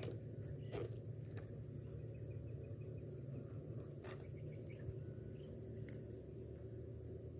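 Steady high-pitched insect trill, with a few light knocks from the fishing pole being handled.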